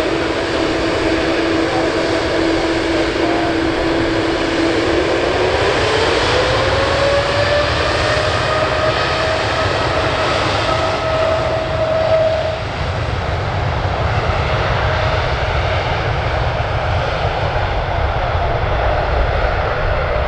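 Boeing 787-9 turbofan engines running over a continuous low rumble. Their steady whine glides up in pitch about five to seven seconds in as the engines spool up toward takeoff thrust.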